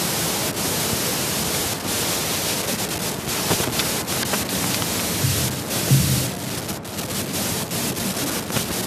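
Steady hiss of a noisy audio feed, even across high and low pitches, with a brief low sound about six seconds in.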